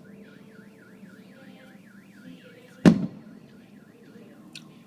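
A car alarm warbles up and down about four times a second and fades out near the end. About three seconds in, a single firework shell bursts with a sharp boom and a rolling echo, the loudest sound here.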